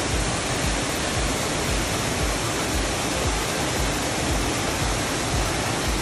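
Waterfall pouring over tiered rock ledges into a pool, a steady, even rush of water.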